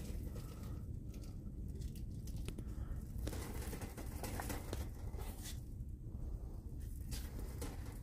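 Handling noise from a handheld camera carried through a shop: scattered clicks and rustles over a steady low rumble.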